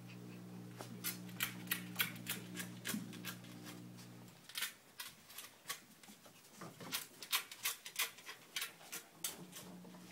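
Quick light clicks and taps from Chinese Crested puppies moving about, claws on the floor, over a steady low hum that stops about four seconds in.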